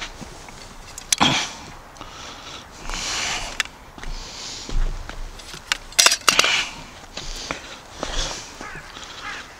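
Handling noise while a hooked trout is played on a rod and landing net: irregular bursts of rustling and a few sharp clicks, the loudest cluster about six seconds in.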